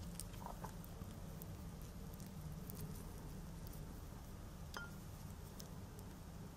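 Faint small clicks and handling noise as fingers pull soft fresh dates apart, over a low steady hum.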